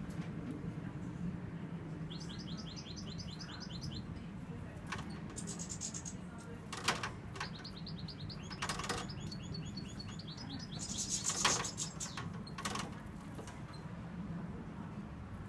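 Caged European goldfinch singing: two runs of fast, evenly repeated high notes, then a louder twittering burst a little past the middle, with a few sharp clicks in between.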